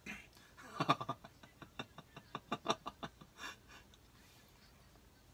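A man laughing: a run of short chuckles starting about a second in and dying away by about four seconds.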